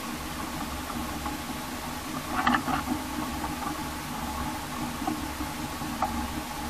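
Steady low hum of a small engine running at idle, with a brief rattling clatter about two and a half seconds in and a single knock near the end.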